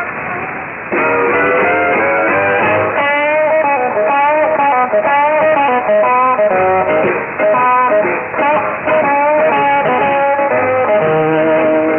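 Guitar-led rock music from a pirate station, heard through an AM shortwave receiver. The sound is thin and muffled, with nothing above the narrow AM audio band. Some notes bend in pitch, and the music gets louder about a second in.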